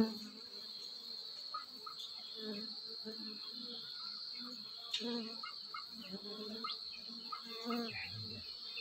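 Honeybees buzzing at the entrance of their nest, with short buzzes coming and going as single bees fly in and out close by. A steady high-pitched insect trill runs underneath.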